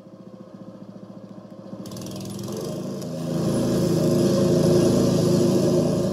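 A loud motor engine running with a fast chugging pulse. It swells over the first few seconds, with a hiss coming in about two seconds in, and is at its loudest around four to five seconds in.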